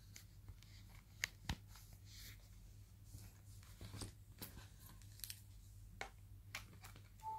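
Faint handling noise from a phone being moved about: scattered small clicks and rustles over a low steady hum, with two sharper clicks about a second and a half in.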